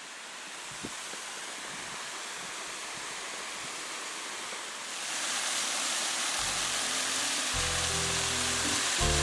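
Steady rush of a waterfall, growing louder about five seconds in. Background music comes in under it for the last few seconds.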